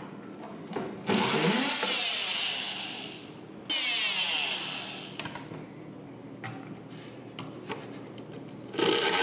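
Oscillating multi-tool with a plunge-cut blade cutting through the thin tabs that hold CNC-cut plywood parts in the sheet. There are two bursts of cutting, about a second and about four seconds in, each starting suddenly and fading off. The tool starts up again near the end, its pitch rising.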